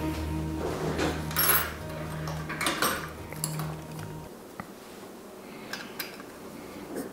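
Small M3 screws clinking and rattling as they are handled and fitted into a part. The clinks are busiest in the first three seconds, then thin out to a few light clicks.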